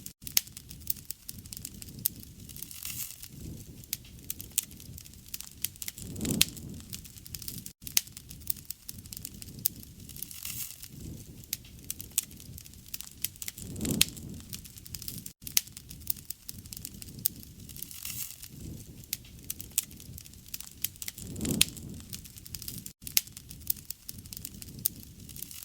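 Wood campfire crackling, with frequent sharp pops and a soft low rush of flame swelling up every few seconds. The same stretch repeats about every seven and a half seconds.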